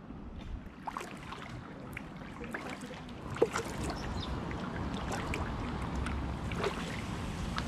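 Small splashes and drips of water around an inflatable kayak on the move, paddle water trickling and dripping in irregular little ticks, with one louder splash about three and a half seconds in.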